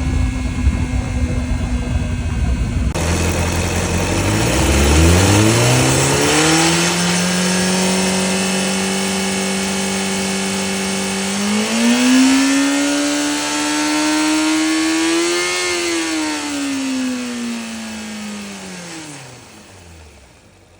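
2005 Honda CBR600RR making a whirring, hissing noise. The whir climbs in pitch, holds steady, climbs again, then winds down and fades out near the end.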